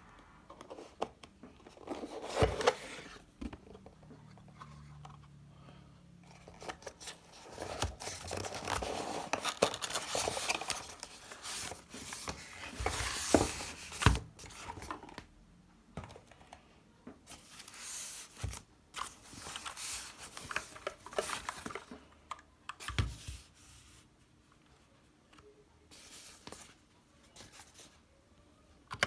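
Packaging being handled and torn open: bursts of tearing, rustling and crinkling, with a few sharp knocks.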